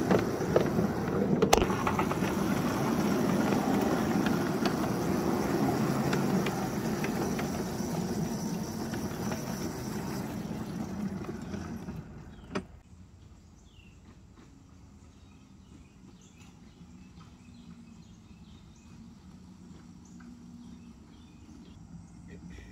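Battery-electric ride-on scale locomotive and its car running along the track, with a steady rumble and clatter of steel wheels on the rails. About twelve seconds in it cuts off abruptly to quiet outdoor background with a single click.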